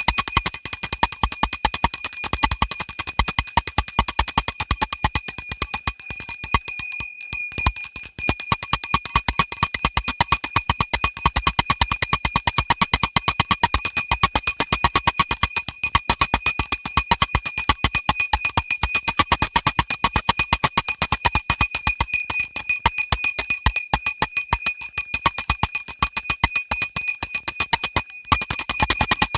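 Worship bell rung rapidly and continuously, its clapper striking many times a second over a steady high ringing, with brief breaks about seven seconds in and near the end.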